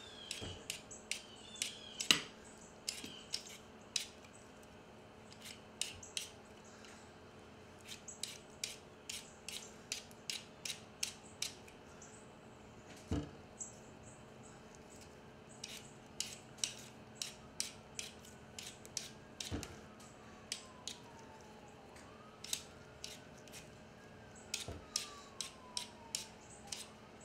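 Hand potato peeler scraping the skin off a raw potato in quick repeated strokes, in runs with short pauses, with an occasional louder knock of the potato or peeler.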